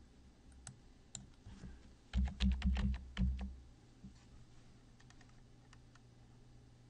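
Computer keyboard being typed: a quick run of about seven or eight key strokes between two and three and a half seconds in, entering a new number. Single clicks come a second or so before the run and fainter ones after it.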